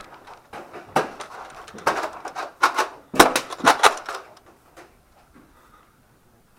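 A run of about six sharp clacks and knocks over the first four seconds, from Nerf Rival blaster play: blaster shots and foam balls striking hard surfaces.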